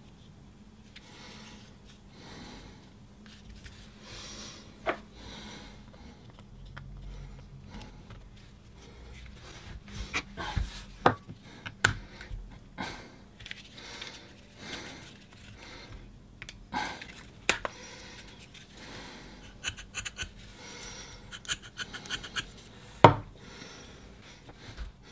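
Small clicks, taps and rubbing of a Briggs & Stratton push-to-prime carburettor's plastic parts being handled and fitted together by hand. The clicks come more often in the second half, and the sharpest one comes near the end.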